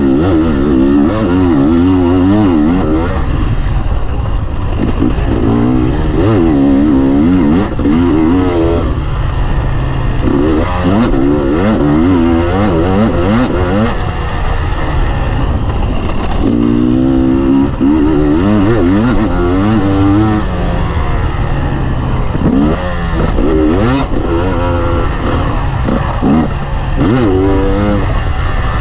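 Dirt bike engine revving hard as it is ridden round a motocross track, its pitch rising and falling over and over as the throttle is opened and closed, heard from an onboard camera on the bike.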